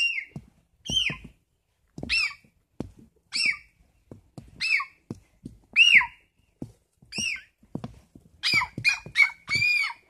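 A child's high, squeaky bird-imitating calls, each one arching up and falling, repeated about once a second, then four in a quicker run near the end. These are made-up calls meant to talk to wild birds, which the child later thinks sounded like an alarm.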